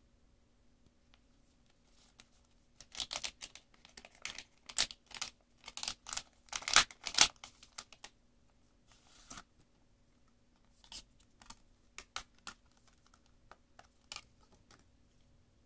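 Foil packaging pouch crinkling and crackling as it is handled and opened, a dense run of sharp crinkles about three to seven seconds in, then a few scattered clicks and rustles of a clear plastic tray as it is taken out near the end.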